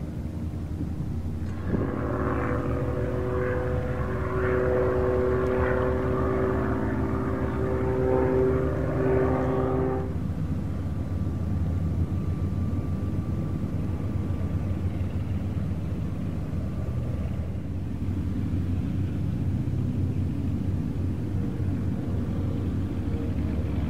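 Propeller and Continental O-470 six-cylinder piston engine of a Cessna L-19 Bird Dog running, a steady droning note with a clear pitch. About 10 seconds in it changes abruptly to a lower, duller engine rumble.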